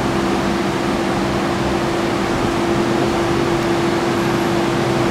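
Steady electric hum of a BTS Skytrain train and station equipment: a constant drone over a rushing noise, with no change in pitch.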